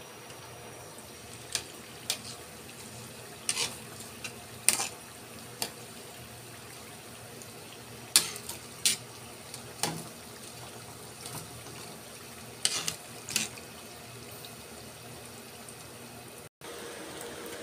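Spring rolls filled with rice cake and cheese deep-frying in hot oil in a wok: a steady sizzle with sharp pops and crackles of spattering oil every second or two.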